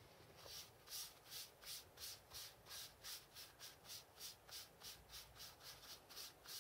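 A cloth wiping back and forth over leather in quick even strokes, about three a second, faint: rubbing at a dried stain to see whether it will fade.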